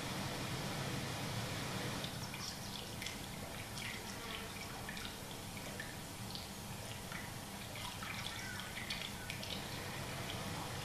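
Scattered, irregular water drips and small ticks beginning about two seconds in, over a steady low hum, heard as a film soundtrack playing in a screening room.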